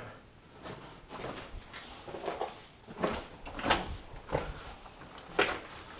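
Footsteps on loose, rocky ground in a mine passage: irregular steps with scrapes and knocks, roughly one every half second to a second.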